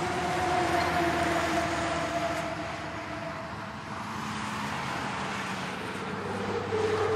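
Distant city traffic noise, a steady hum with faint held tones over it; one fades out a few seconds in and another starts near the end.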